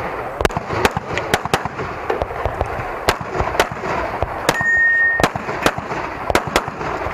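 Semi-automatic pistol fired in an irregular string of rapid shots, often about two a second with short gaps, during a practical shooting stage run. A steady high beep sounds briefly about four and a half seconds in.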